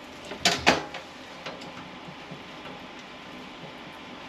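Two sharp metallic clicks about half a second in, then a fainter one, as the long metal side rail is fitted into a steel kitchen drawer.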